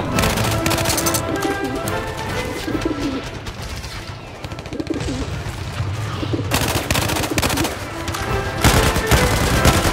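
Pigeon cooing in the middle, between bursts of rapid gunfire with music underneath; the gunfire comes back heavy about two-thirds of the way in.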